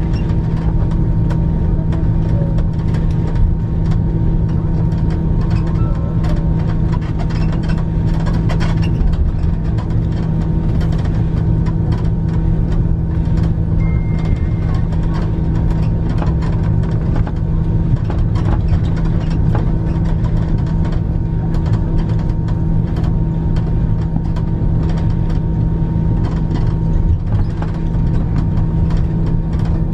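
Cabin noise inside an Airbus A340-300 taxiing on the ground: a steady hum from its four CFM56 engines at taxi power, with several constant tones over a low rumble. Faint ticks and rattles run through it.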